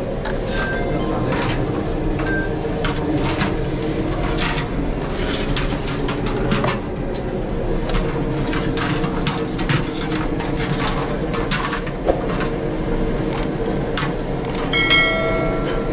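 Pizza-shop kitchen noise: a steady low rumble with frequent clicks and clatter as pizzas are worked at the oven and cut in their boxes. About a second before the end, a short bright chime rings out over it.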